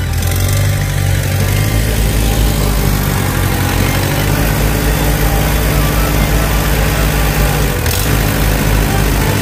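Allis-Chalmers D14 tractor's four-cylinder gasoline engine running steadily at an even speed.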